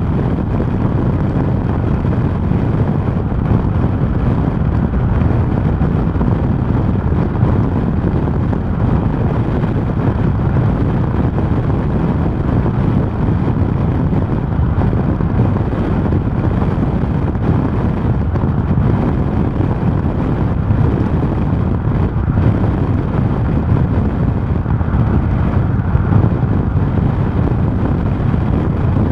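Steady, loud, low rush of wind noise against a storm-chase vehicle and its dash-mounted camera, with no distinct tones.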